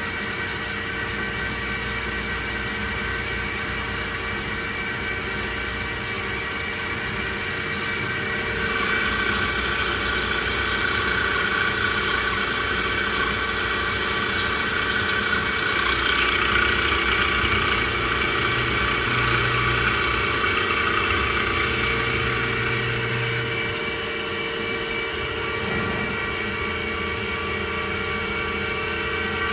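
CNC machining centre running a program to mill and tap holes in a case-hardened BMW crown wheel with an end mill under coolant: a steady whine of several tones from the spindle and drives. About nine seconds in it grows louder with a hissing noise of coolant and cutting, which eases off again near the end.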